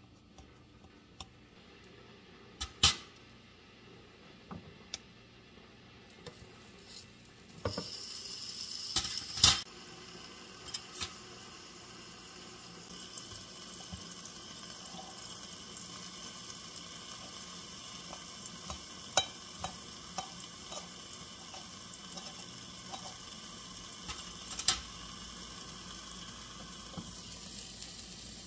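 Hot dog sausage sizzling on the hot plates of an electric waffle maker, a steady frying hiss that starts several seconds in. Before it come light clicks of a knife and tongs on a plate, and a couple of loud sharp clacks come just after it starts.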